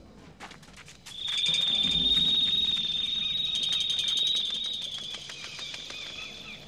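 A shrill, steady insect trill with rapid ticking, starting about a second in and fading toward the end.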